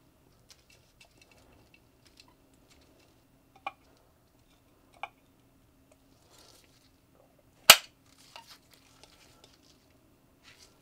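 Small metal clicks and taps as the parts of a vintage metal toilet paper holder are handled and fitted together, with one sharp, much louder click about two-thirds of the way through as the roller rod is set into the holder.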